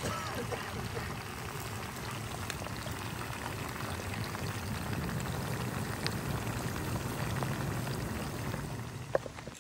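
Hand-cut potato fries deep-frying in hot oil in a small camping pot: a steady sizzle and bubbling, with a couple of faint pops.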